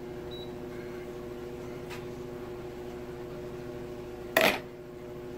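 Microwave oven running with a steady hum of several even tones, and one sharp knock about four seconds in.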